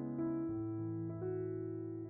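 Slow electric-piano music: held chords over a bass line, the notes changing about every half second.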